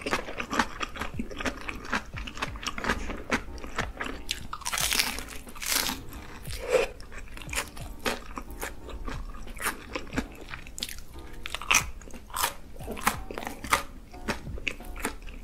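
Close-miked crunchy bites and chewing of raw cucumber: irregular wet crackles of crisp vegetable breaking between the teeth, with soft background music underneath.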